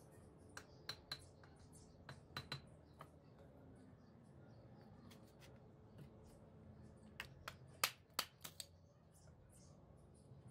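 Scattered sharp clicks and taps of brick and trowel on brick and mortar as a brick is set and pressed into place on a wall, the loudest few clicks coming about three-quarters of the way through.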